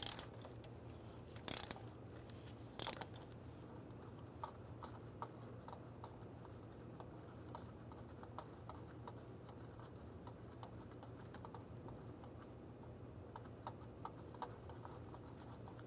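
Ratchet on a 5/8 spark plug socket backing a spark plug out of the 3.6-litre V6's head: a few sharp clicks in the first three seconds, then a long run of faint, irregular ratchet clicks as the plug unscrews.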